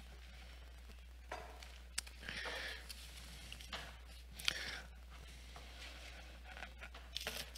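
Faint, intermittent rustling of paper, with a few sharp clicks and soft knocks, as papers, a booklet and a book are handled at a lectern.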